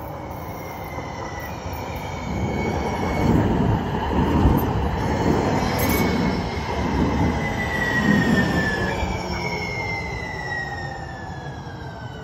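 A San Diego Trolley light-rail train running past close by on its way into the station, its rumble loudest in the middle. Over it a high whine steps and slides down in pitch as the train slows.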